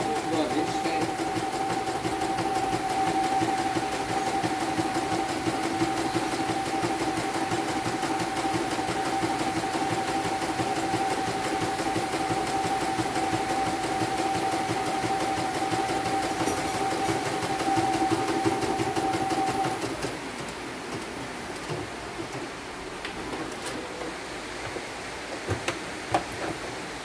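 CNY computerized embroidery machine stitching a design in its hoop, a steady, even hum with a fast needle rhythm that stops about 20 seconds in. After that come a few light clicks as the embroidery hoop is handled.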